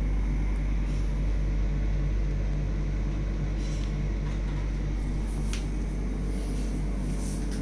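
Steady low mechanical room hum with a faint high whine, and a faint tick about five and a half seconds in.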